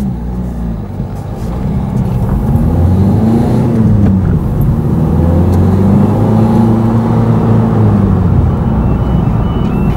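A car engine pulling away and accelerating, its note rising, dipping briefly about four seconds in and rising again, then easing off near the end as the car slows, over tyre and road noise. Near the end a faint two-tone warning alarm starts up.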